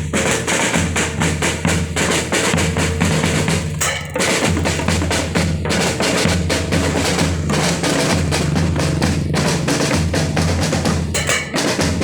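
Primary-school drum band playing: snare and bass drums beating a steady, driving marching rhythm with snare rolls.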